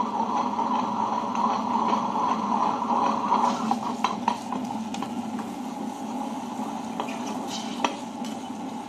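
Tabletop wet grinder running steadily, its stone rollers turning in the steel drum as soaked urad dal is added, with a few light clicks against the steel.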